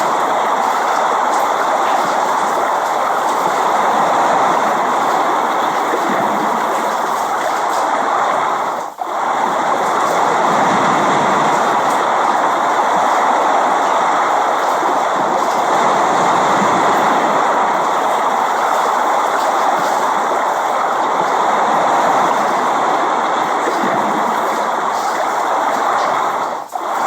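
Steady heavy rain, an even hiss with no pauses, that briefly drops away about nine seconds in and again near the end.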